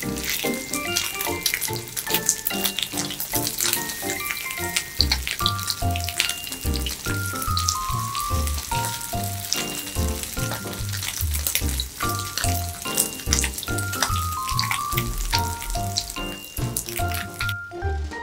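Background music with a light melody and, from about five seconds in, a steady bass beat, over the crackling sizzle of egg-battered crab stick and perilla leaf rolls frying in oil in a pan. The sizzle stops near the end.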